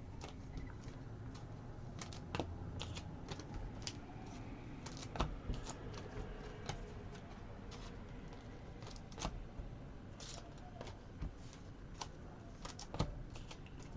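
Faint, irregular clicks, taps and light rustles of trading cards, card packs and cardboard boxes being handled and set down.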